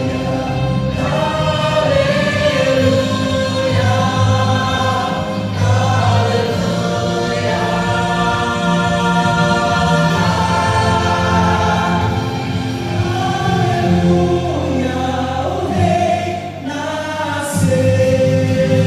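A vocal group singing a Christian gospel song in sustained harmony, with a brief lull near the end.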